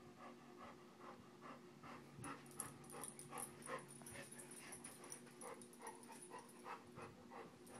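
English mastiff panting faintly, quick breaths about three a second, growing more regular about two seconds in.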